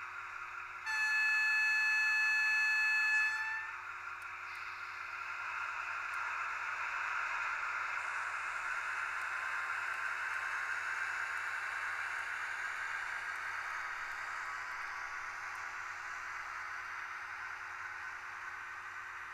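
Sound module of a Märklin BR 294 diesel locomotive model: a single horn blast of about two seconds, then the diesel engine's start-up and steady running sound, played through the model's small loudspeaker and so thin, with hardly any bass.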